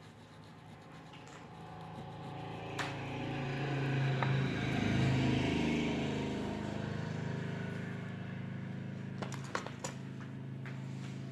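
A motor vehicle's engine running, growing louder over a few seconds and then holding steady. There are a few sharp taps, one early on and a cluster near the end.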